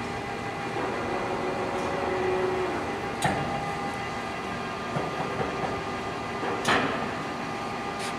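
Large Poreba engine lathe running under power, its geared headstock and big four-jaw chuck turning with a steady mechanical hum and gear whine. Three sharp knocks come through, about a third of the way in, about two-thirds of the way in and near the end.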